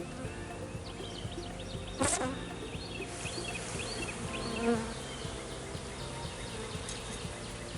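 Honeybees buzzing steadily around an opened hive, with a sharp click about two seconds in and a louder buzz swelling briefly a little past halfway.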